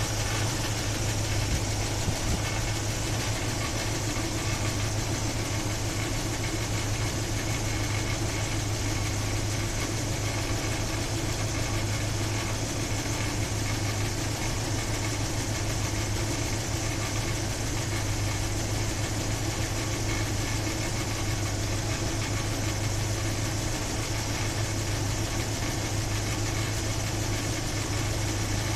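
Chevy 350 small-block V8 idling steadily, carrying a noise from the top end that sounds almost like a bad alternator bushing but seems to come from the back and side of the engine, which worries the owner.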